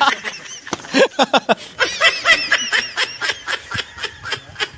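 Several men laughing hard in quick, uneven bursts, some laughs rising into high squeals.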